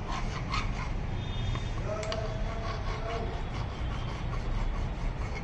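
Hand file rasping in irregular strokes across a bicycle fork crown, filing the crown race seat flat.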